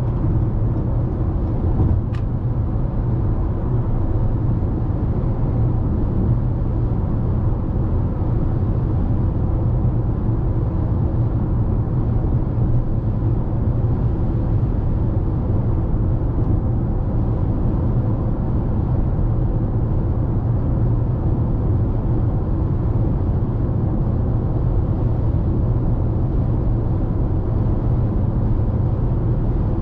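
Cabin noise of a 2021 Toyota RAV4 cruising at highway speed: a steady low rumble of tyres on the road.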